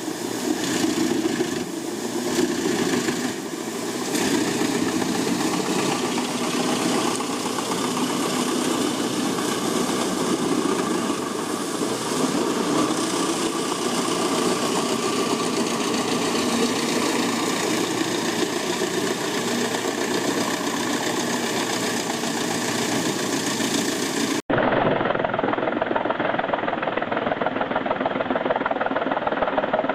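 Large wood chipper's engine running steadily under load while it shreds logs. About 24 seconds in, the sound cuts abruptly to a duller recording of machinery running with a fast, even pulsing.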